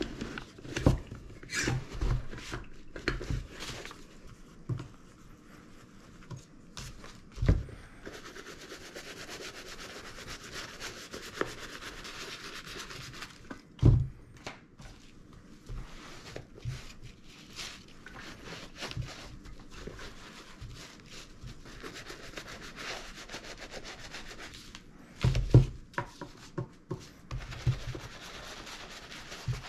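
A dauber brush scrubbing saddle soap lather into a leather work boot, a steady rubbing hiss in long stretches. Short knocks and clatter near the start as a shoe tree is fitted, and a few loud knocks against the table later on.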